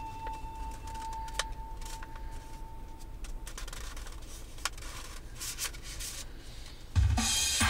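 Low rumble of a car cabin with the engine idling while stopped in traffic, with scattered clicks and rubbing; a steady high tone fades out about three seconds in. Music with a beat starts suddenly and loudly near the end.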